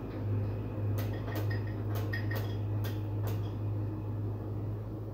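Gas stove burner's igniter clicking as the knob is turned to light it: six sharp clicks in three pairs, over a steady low hum.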